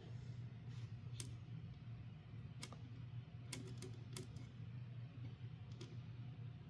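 Faint, scattered small clicks and taps of an M.2 SSD being handled and seated in the motherboard's slot, about six sharp clicks at irregular intervals over a steady low hum.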